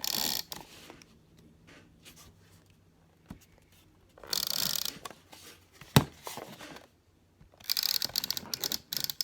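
Adhesive tape pulled off a handheld tape roller dispenser and torn off, in several short bursts, with a sharp click about six seconds in and a quick run of ticking near the end.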